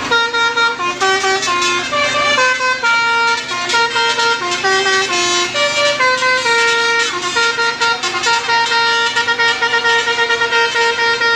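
Telolet horn, a multi-tone musical air horn of the kind fitted to Indonesian buses, playing a tune: loud, clear notes stepping up and down in a melody.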